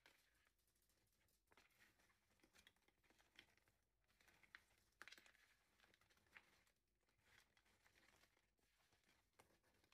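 Faint rustling and light clicking of broccoli florets and sausage slices being tossed by hand on a metal sheet pan.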